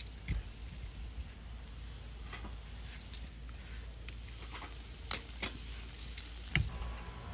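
Zucchini slices sizzling faintly on a charcoal grill grate, with a few short, sharp clicks of metal tongs against the grate as slices are set down.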